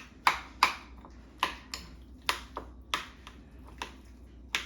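A utensil knocking and clinking against a bowl while guacamole is mashed and mixed, about ten sharp strikes at an uneven pace.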